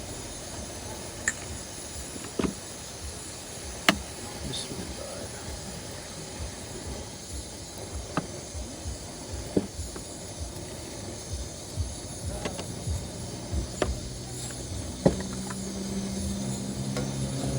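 Steady hiss of a flowing river, with scattered sharp clinks and knocks of cooking utensils against a pot as water is added to a pot of chicken and potatoes. A low hum sets in near the end.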